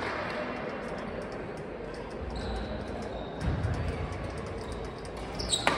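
Reverberant badminton-hall ambience: scattered light, sharp clicks of rackets striking shuttlecocks on the surrounding courts. There is a brief high squeak about two and a half seconds in and another just before the end, typical of shoes on the wooden court floor.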